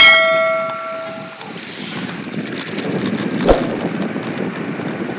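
A bright bell-like ding rings out at the start and fades away over about a second and a half; it is the notification chime of a subscribe-button animation. After it comes a steady low outdoor rumble, with a single thump about three and a half seconds in.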